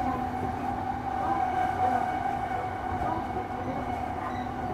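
Running sound of a JR electric commuter train at speed, heard from aboard: a low rolling rumble of wheels on rail with a steady hum held at one pitch.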